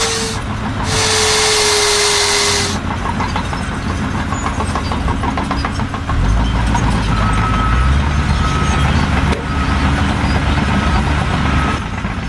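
Heavy vehicle or machinery: a loud hiss of air with a slowly falling tone, then an engine rumbling from about six seconds in, with short repeated beeps over it.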